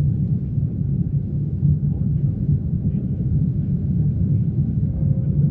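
Airliner jet engines and airflow during takeoff and climb, a steady low rumble.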